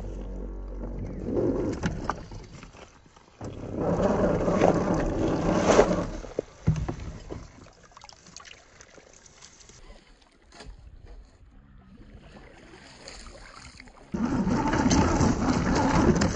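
Radio-controlled scale crawler truck driving through shallow stream water: its electric motor and gears run while the tyres churn and splash the water. It comes in spells, loud from about three to six seconds in and again near the end, with a quieter stretch between.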